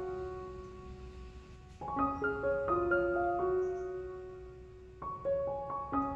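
Background music: a gentle melody of single struck notes, its short phrase starting over about every three seconds.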